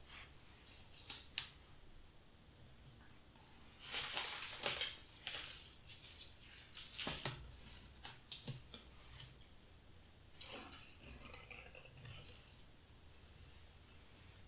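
Dried bunny-tail grass stems rustling and crackling as they are picked up and gathered into a bunch by hand, in short crisp bursts with pauses.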